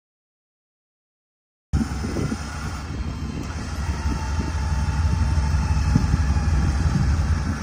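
Silence for the first couple of seconds, then the steady low rumble of vehicle engines running outdoors, with a faint higher whine through the middle.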